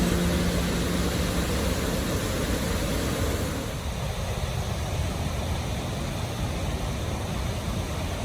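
Steady rush of a large waterfall's fast-flowing water, an even noise without pitch. The tail of background music fades out in the first couple of seconds.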